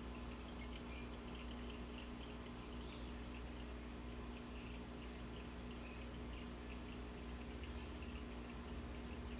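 Steady low hum of running aquarium equipment. Above it, faint high chirps come every second or two, along with a faster, fainter high pulsing.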